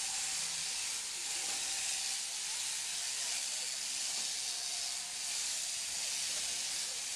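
Electric sheep-shearing handpieces running as they cut through fleece, making a steady high-pitched whir.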